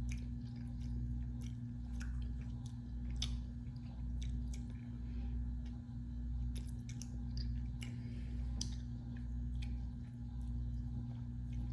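A person chewing and eating soft ice cream with crunchy chunks, with scattered small wet mouth clicks. Under it runs a steady low electrical hum.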